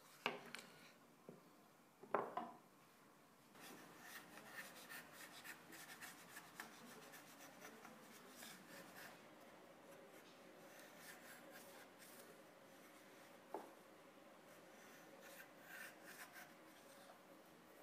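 Steel bench chisel paring a walnut blank by hand: faint, quick scraping cuts, one after another, starting about three seconds in after a couple of light knocks.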